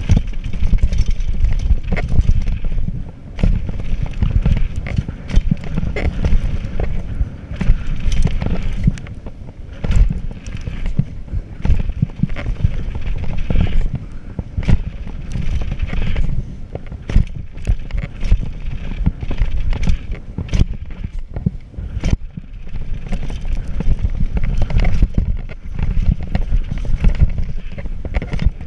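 Wind rushing over the camera microphone at speed, with a Radon Swoop 200 mountain bike rattling down a dirt jump trail. Its tyres run on packed dirt, and many sharp knocks and clatters come from the bike over bumps and landings.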